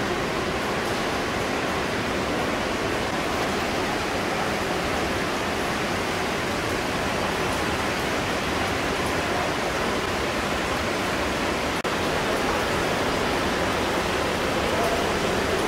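Steady rush of flowing water inside a large limestone cave, a continuous even noise with no break.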